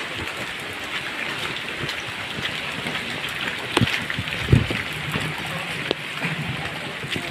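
Heavy typhoon rain falling steadily, with a couple of dull thumps about four seconds in.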